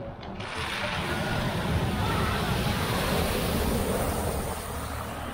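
An SUV driving through a flooded ford: the rush of water churned up by its wheels, over the sound of its engine, swells about half a second in and holds steady before easing slightly near the end.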